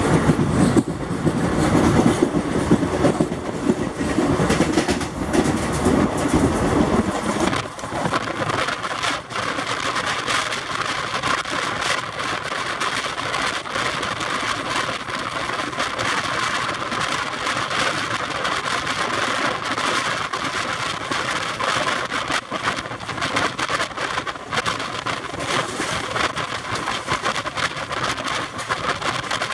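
Indian Railways express passenger train running at speed, heard from a coach doorway: a steady rush of wind and wheels on the rails, with frequent short clicks. About seven or eight seconds in, the deep rumble drops away and a higher hiss takes over.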